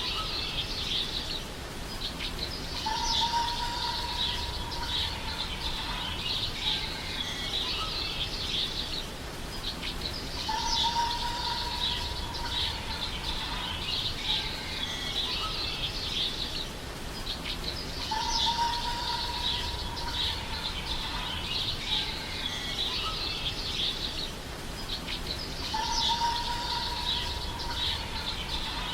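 Birds chirping and twittering in a continuous dawn-chorus-like ambience, with a long, even whistled note recurring four times at regular intervals of about seven and a half seconds: a looped nature-ambience recording.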